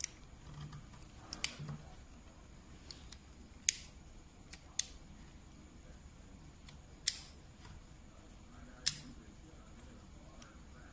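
Sharp plastic clicks, about six at irregular intervals, as the parts of a W5 Judgement Joker Beyblade spinning top are turned and fitted together by hand.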